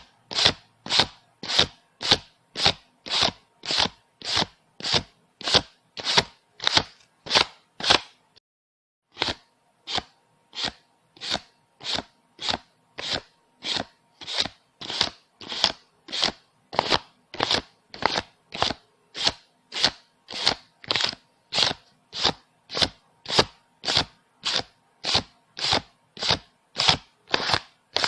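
Paper banknotes being counted by hand, each bill flicked off the stack with a short crisp snap, about two a second in an even rhythm, with a brief pause about eight seconds in.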